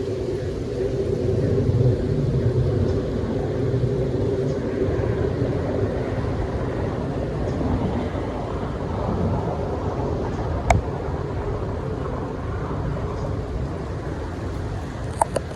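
Steady rain-and-wind ambience with a low, continuous rumble. A sharp tick cuts through about eleven seconds in, and a quick pair of ticks comes near the end.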